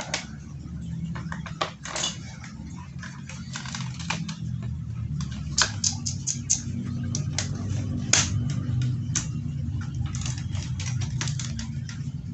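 Irregular clicks and knocks of an AUG-style airsoft electric rifle being handled, its plastic body and parts knocking and clicking as it is turned in the hands. A steady low hum runs underneath.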